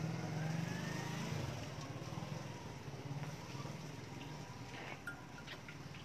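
A motor engine running steadily with a low, rapidly pulsing hum that slowly gets fainter, with a faint rising whine over the first two seconds.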